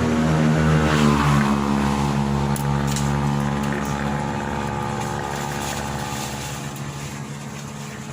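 A motor vehicle's engine passing close by: its pitch drops about a second in as it goes past, then it fades away.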